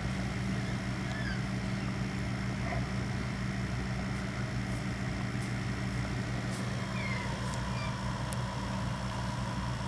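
A steady low mechanical hum with a few faint, short high chirps over it.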